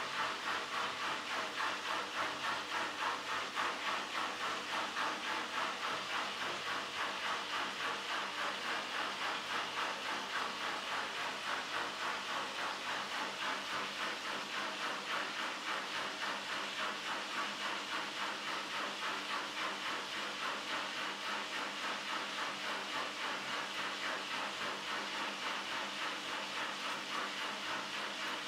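Siemens iSensoric WM12N2K7GR front-loading washing machine spinning its drum near the end of the wash programme: a steady whooshing hiss that pulses evenly a couple of times a second.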